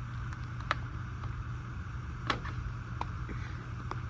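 A few sharp clicks and taps, about four, as hand tools and their packaging are handled, over a steady low background hum.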